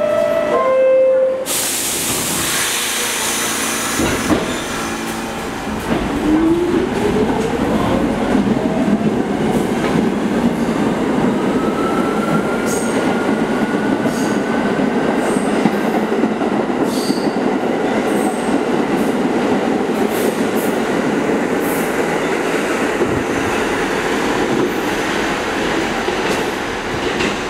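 R46 subway train departing: a two-note falling door chime, a burst of hissing air and a knock, then the traction motors whine up steadily in pitch as the train gathers speed, over loud rumbling wheels on the rails.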